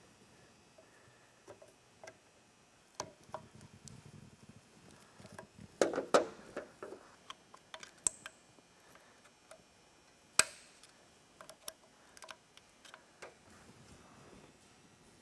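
Scattered small metal clicks and taps of circlip pliers and a thin pick working against an aluminium brake master cylinder body. There is a short cluster of clatter about six seconds in and one sharp click about ten seconds in.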